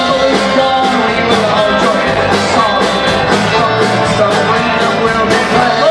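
Live Irish folk-rock band playing an up-tempo tune with a steady drum beat: fiddle, banjo, acoustic and electric guitars, bass, bodhrán and drum kit.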